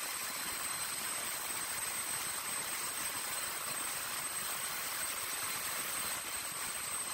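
A machine running steadily: a constant rushing hiss with a thin, high-pitched whine held over it, unchanging throughout.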